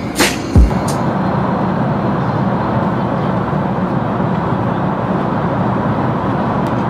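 A couple of deep falling bass hits of music end within the first second, then the steady, even rush of an airliner cabin in flight.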